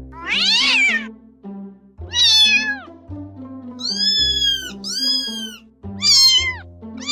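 A cat meowing five times, each meow an arched call of about a second, over background music with a low stepping melody.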